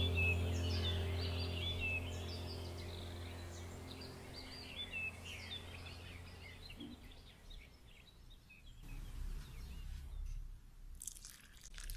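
Small birds chirping repeatedly in the background over a steady low hum that fades away by about halfway through; the second half holds only faint scattered sounds.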